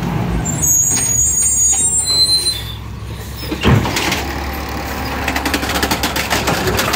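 Garbage truck's engine running, with a high brake squeal from about half a second in lasting around two seconds. A thump comes a little past halfway, followed by light rattling.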